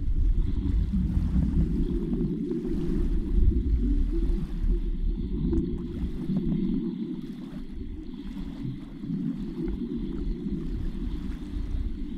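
Muffled, steady underwater rumble of moving water, picked up by a camera sealed in its underwater housing, with a few faint clicks.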